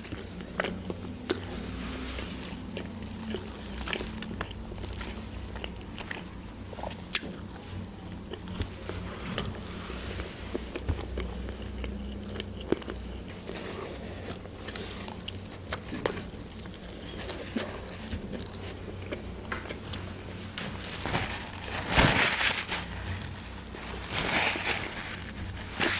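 Close-up eating sounds: biting, chewing and crunching fried chicken, with scattered small clicks and crackles. Near the end comes a louder rustle of a paper napkin as hands are wiped.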